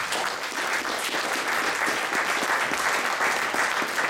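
Audience applauding, many people clapping at once.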